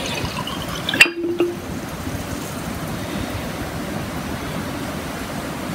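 Vinegar poured from one glass jar into another, a steady trickle of liquid, with a single glass clink about a second in.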